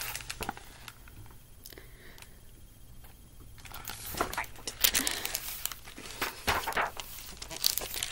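Pages of a picture book being handled close to the microphone, rustling and crinkling as the book is held up and moved. The rustling is heard briefly at first, goes quiet for a couple of seconds, then returns as a longer, busier stretch from about halfway in.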